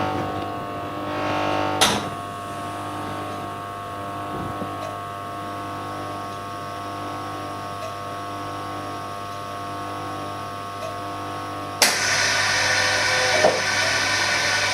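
An all-in-one LCD laminating and bubble-removal machine running its cycle with a steady hum. There is a click about two seconds in. Near the end another click comes, and a louder, steady hiss starts and keeps going.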